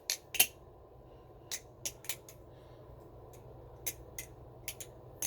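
Balisong trainer being flipped: sharp metallic clicks and clacks as its aluminium channel handles swing shut and the trainer blade's tang strikes the tang pins. About ten clicks come at an irregular pace, several in quick pairs.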